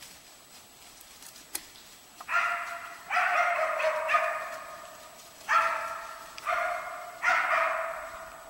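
West Siberian laika barking at a moose, about six sharp barks roughly a second apart starting a little over two seconds in: the hunting dog baying to hold the moose in place.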